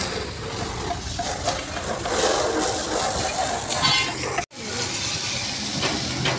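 Water spraying from a hose and splashing onto a steel truck diesel tank as it is washed: a steady hiss, cut off abruptly for a moment about four and a half seconds in.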